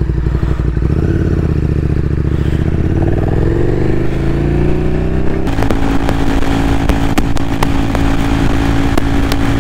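KTM Duke motorcycle engine pulling away, its note rising steadily as it accelerates. About halfway through it changes to a steady cruise at highway speed, with wind noise and sharp ticks of rain hitting the microphone.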